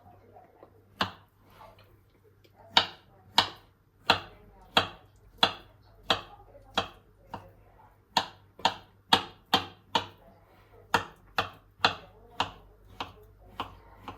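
Knife chopping food on a cutting board: sharp, even chops, one about a second in, then a steady run of about two a second.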